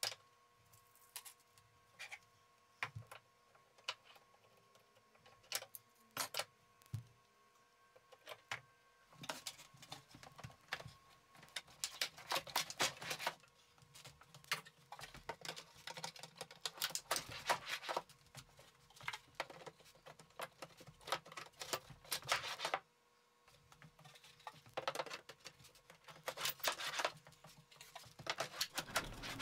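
Scattered light clicks, taps and knocks of metal drawer slides and plywood drawers being handled and fitted into a plywood cabinet, sparse at first and busier after the first several seconds, over a faint steady hum.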